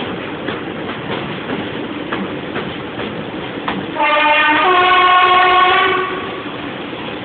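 Class 25 diesel locomotive's two-tone horn sounding for about two seconds midway, changing note half a second in, over the clickety-clack of the train's wheels on rail joints.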